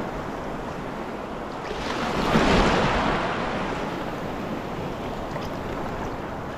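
Surf washing onto a beach, with one wave breaking louder about two seconds in, rising and then fading away.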